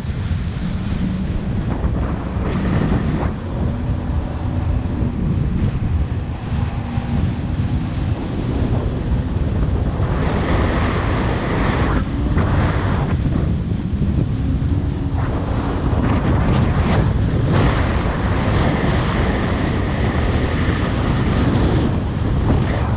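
Jet ski running on the water, mostly buried under wind buffeting the action camera's microphone, with the rush of water and spray.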